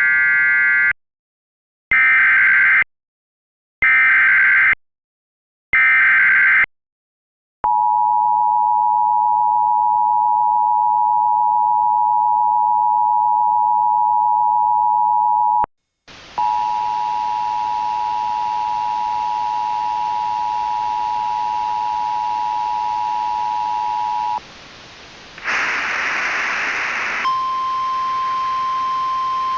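Emergency Alert System S.A.M.E. header: four short warbling data bursts about a second apart. Then the two-tone EAS attention signal for about eight seconds, a brief break, the two-tone again over a faint hiss, a short burst of static, and finally the steady single-pitch NOAA Weather Radio warning alarm tone.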